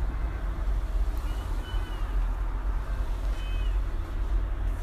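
Steady low hum over background noise, with a few faint, short high-pitched chirps.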